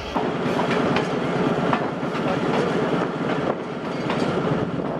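Diesel-hauled passenger train rolling slowly into a station, heard from on the locomotive: a steady rumble with the wheels clattering over the rail joints.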